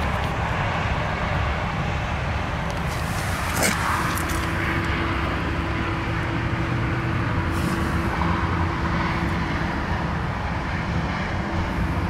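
Steady low rumble of traffic and vehicles around a busy car park. There is a single sharp click about three and a half seconds in, and a steady hum joins just after it.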